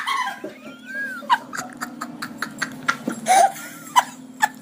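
A woman laughing hard in short breathless gasps, about three or four a second, with brief high squeaks, just after a scream, over a steady low hum.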